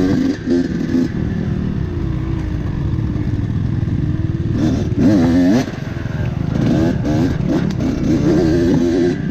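Dirt bike engine revving up and down while riding over rocks, with clattering knocks; the revs climb hardest about five seconds in.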